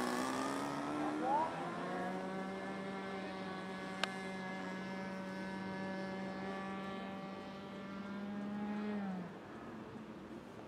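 The Great Planes Escapade 40 RC airplane's .40-size model engine drones steadily in flight. Its pitch rises briefly about a second in, and one sharp click comes near four seconds in. Around nine seconds in the pitch sags and the sound falls away.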